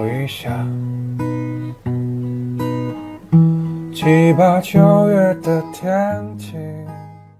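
Background music: an acoustic guitar strumming, with a voice singing a melody over it in the second half, fading out near the end.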